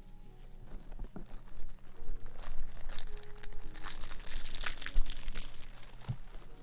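Close-up ASMR crinkling: something crinkly being crumpled and handled near the microphone, a dense run of irregular crackles that builds about a second in and dies away near the end.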